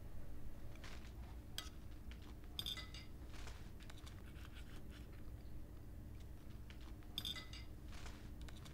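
Knife and fork clinking and scraping on a ceramic dinner plate as a chop is cut: a few faint, light-ringing clinks spread through.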